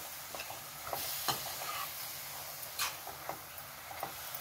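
Metal spatula stirring drumstick leaves in a pan over a steady sizzle, with about half a dozen short scrapes and taps against the pan.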